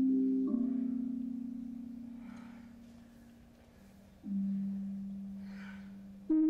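Sparse, slow music of low, long-ringing tones. A new note sounds about half a second in, another around four seconds in and another near the end, each fading slowly.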